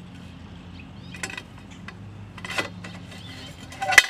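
Sharp metallic clicks and clanks as an aluminium rack rail is fitted against a metal bracket plate: three main knocks, the loudest near the end, over a low steady hum.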